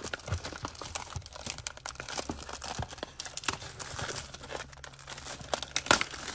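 Clear plastic shrink wrap being torn and peeled off a cardboard box of trading cards, crinkling and crackling throughout, with a louder crackle near the end.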